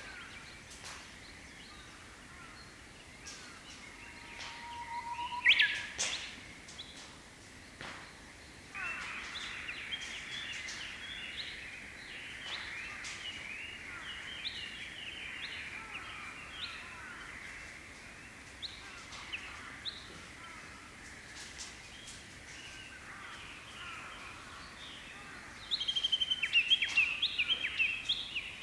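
Japanese bush warbler singing: a short, steady low whistle about four and a half seconds in, then a loud, quick sweeping flourish, the bird's 'hoo-hokekyo' song. From about nine seconds a dense chirping of small birds goes on underneath, and near the end a loud run of rapid, repeated high notes starts.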